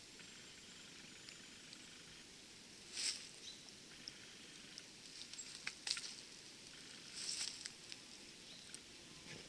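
Faint footsteps and rustling through fallen leaves and forest litter, with a few brief louder rustles, the strongest about three seconds in, and a few sharp clicks like small twigs snapping.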